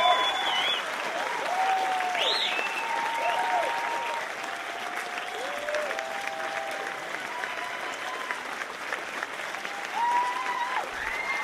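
Theatre audience applauding, with scattered voices calling out and whooping over the clapping. The applause is strongest at first, eases a little, then swells again near the end.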